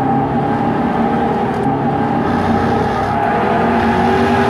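Jaguar XKR-S's supercharged 5.0-litre V8 running hard in third gear. The engine note holds fairly steady, then begins to rise near the end.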